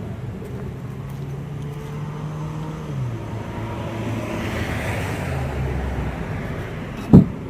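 Road traffic passing: a vehicle's engine drone that drops in pitch about three seconds in, with road noise swelling and fading. Near the end a single sharp knock, the loudest sound, as the fishing net's handle is set into the toolbox-mounted rod holder.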